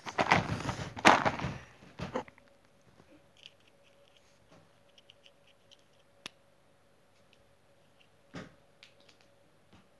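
Loud rustling and handling noise right at the phone's microphone for about two seconds, then faint small clicks and taps of a little plastic doll accessory being handled, with a soft knock about eight seconds in.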